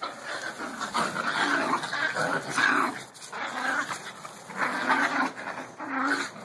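Two small dogs play-fighting, growling in repeated rough bursts.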